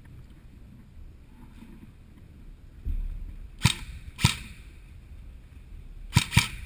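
Four sharp airsoft gun shots in two pairs: two about half a second apart, then two more in quick succession near the end.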